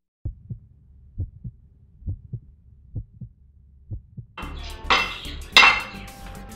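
Heartbeat sound effect: paired low thumps about once a second. About four seconds in it gives way to steady background noise with two sharp, louder sounds.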